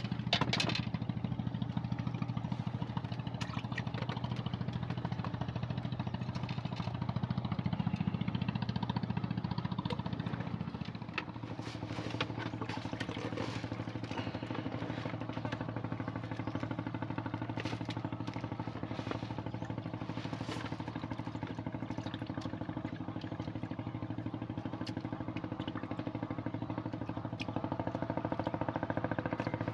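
An engine running steadily with a low drone that changes pitch about eleven seconds in, with scattered light clicks over it.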